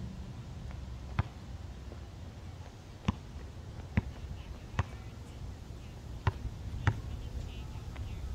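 A basketball bouncing on a hard outdoor court: six sharp smacks at uneven intervals, as the ball is dribbled and shot, over a steady low rumble.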